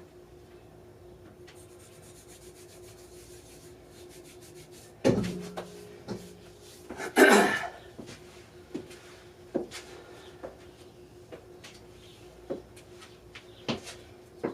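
Gym equipment being handled: a sharp clank with a brief ring about five seconds in, a louder rushing burst about two seconds later, then scattered light knocks and clicks over a steady low hum.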